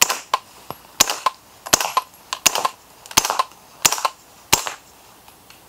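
Spikes Tactical Brown Recluse integrally suppressed 9mm carbine firing with its suppressor dry: seven muffled shots at a steady pace a little under a second apart, each followed by a fainter crack. The firing stops about five seconds in.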